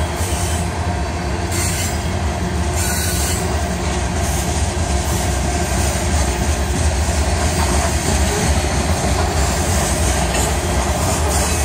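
Covered hopper cars of a long freight train rolling past: a steady, loud noise of steel wheels on the rails, heaviest in the low end.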